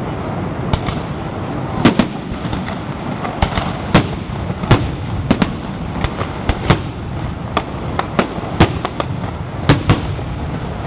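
Fireworks bursting overhead: more than a dozen sharp bangs at irregular intervals, some in quick pairs, over a steady background rumble.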